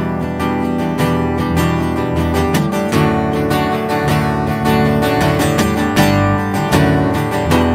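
Live worship-band music without singing: acoustic guitar strumming steadily over sustained chords.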